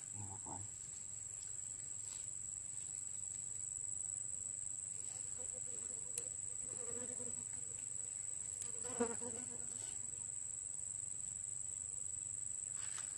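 Insects trilling in one steady, unbroken high-pitched tone, with a couple of faint clicks.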